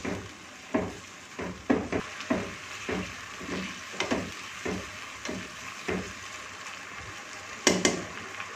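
Beef and yogurt sizzling in a nonstick pan as a slotted spatula stirs and scrapes through it, a stroke about every half second with a brief lull near the end. This is the bhunai stage of a korma, the meat being fried down with yogurt.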